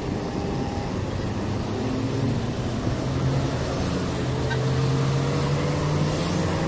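Road traffic: a motor vehicle engine running with a hum that rises slowly in pitch, over a steady rushing noise.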